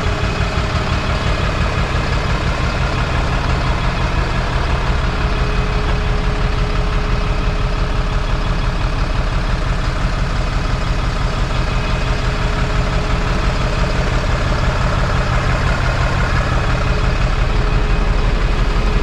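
Scania DC07 seven-litre six-cylinder diesel in a bus, idling steadily with a fast, even low pulse and a steady hum above it; it grows slightly louder near the end.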